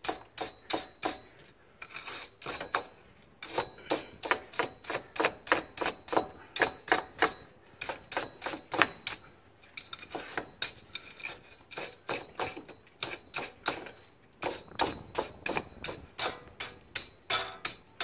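Steel wire brush scrubbing rust off a car's front wheel hub in quick back-and-forth strokes, about three or four a second, with a few short pauses.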